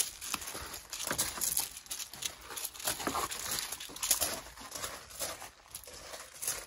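Footsteps crunching on loose gravel in an uneven walking rhythm, with a puppy's paws scuffing the gravel.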